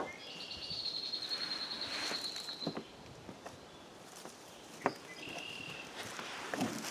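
A songbird trilling: a high, rapid trill of about two and a half seconds, then a shorter, lower trill. A single sharp knock sounds near the middle.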